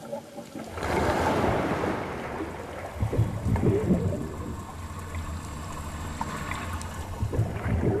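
Rush and splash of water as a scuba diver plunges in from a boat, then underwater bubbling over a low steady hum.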